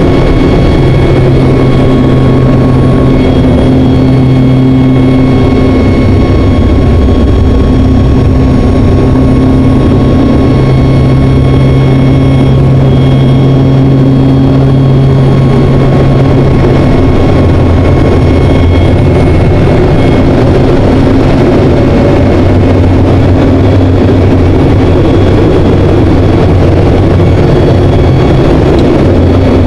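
Propeller aerobatic trainer's engine and propeller droning steadily in flight, heard loud from inside the cockpit along with airflow noise; the drone's pitch drops slightly about two-thirds of the way through.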